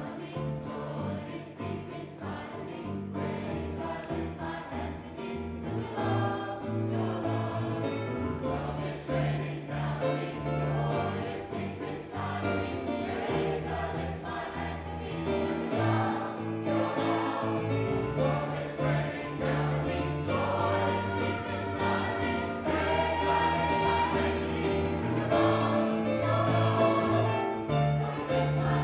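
Gospel choir singing in full harmony over sustained low instrumental notes, growing louder toward the end.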